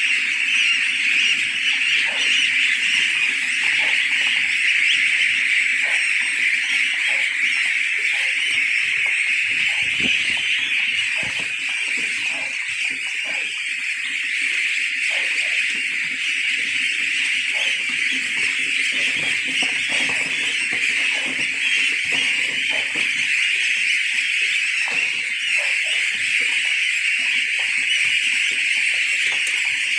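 A flock of hundreds of 18-day-old goslings peeping together in a dense, steady, high-pitched chorus: hungry goslings calling impatiently while they wait to be fed.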